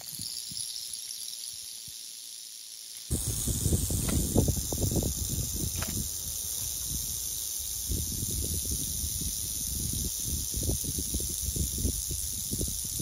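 Timber rattlesnake buzzing its tail rattle: a steady, high, hiss-like buzz that runs on without a break. A low rumbling noise comes in about three seconds in.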